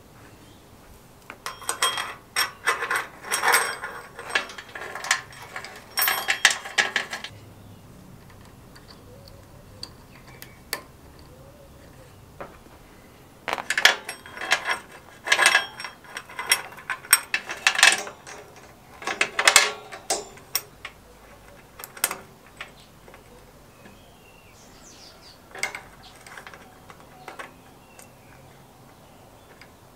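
Steel roller chain rattling and clinking as it is handled and fed over the drive sprockets of a Suffolk Super Punch lawnmower. The clicks come in two long runs of quick metallic clatter, then a few scattered ones near the end.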